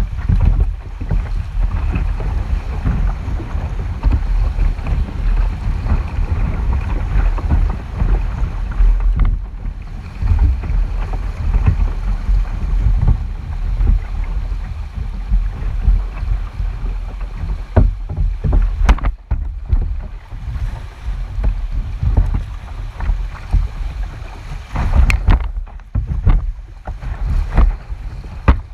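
Kayak on a river: water splashing and lapping around the boat under steady wind rumble on the microphone, with a few sharp knocks about two-thirds of the way through and again near the end.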